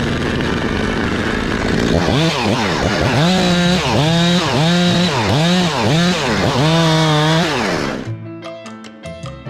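Chainsaw engine running hard. From about two seconds in, its pitch repeatedly drops and climbs back up, several times over, before it cuts off suddenly near the end, where music with brass begins.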